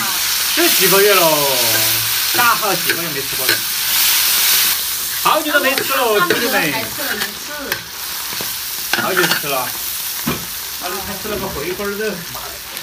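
Stir-frying in a large wok: a metal spatula scrapes repeatedly round the pan, each stroke giving a ringing scrape, over the sizzle of chili bean paste and pickled vegetables frying in hot oil.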